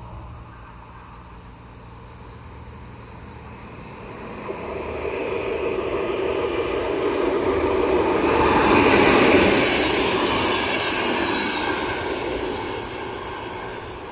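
Romanian 060-EA (LE 5100 kW) electric locomotive hauling a passenger train past: wheel and rail noise swells over several seconds, is loudest about nine seconds in as the locomotive goes by, then fades as the coaches pass and the train draws away.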